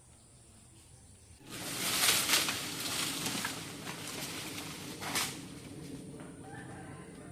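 Over a steady high insect drone, a sudden loud rustling, crashing rush of leafy branches starts about a second and a half in. It lasts some four seconds, with a sharp crack near the end, then dies down to a softer rustle.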